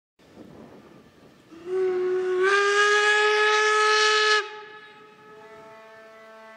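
Steam locomotive whistle: a hiss of steam, then about a second and a half in a loud whistle blast that steps up slightly in pitch, holds for about three seconds and cuts off sharply, leaving a fainter tone lingering.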